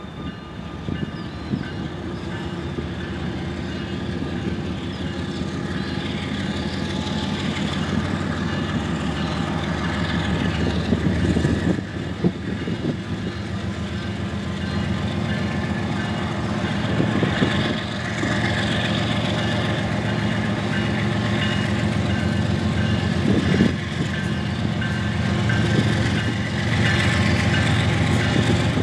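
Diesel freight locomotive engine running as the train approaches at low speed, growing steadily louder, with a few sharp clanks of wheels over the rails.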